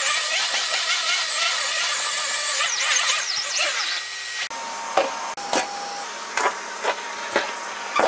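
Numatic vacuum cleaner with an Airo Brush head running over thick pile carpet, picking up paper scraps. About halfway through the sound changes abruptly, and a run of sharp clicks follows over the steady motor noise.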